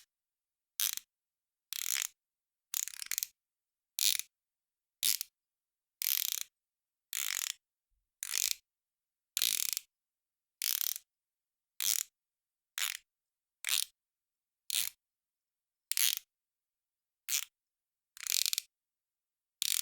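Ratchet screwdriver being twisted in short strokes, the pawl clicking rapidly through the ratchet teeth in a burst with each turn, about one burst a second with silence between.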